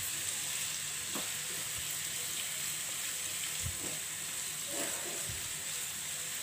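Chopped onions sizzling steadily as they fry lightly in mustard oil in a non-stick pan, with a few soft scrapes of a spatula stirring them.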